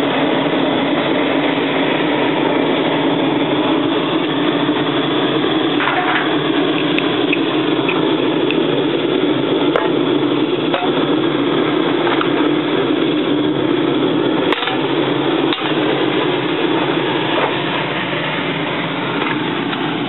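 Forced-draft wood fire in a brick aluminium-melting furnace, air pumped in through the bottom: a steady rushing of blown air and fire, with a few faint pops.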